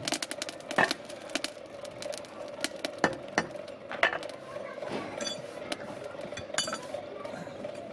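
Irregular clinks and knocks of a wooden pattern, metal moulding flasks and hand tools being handled and set down around a sand-casting mould on a stone floor, over a steady hum.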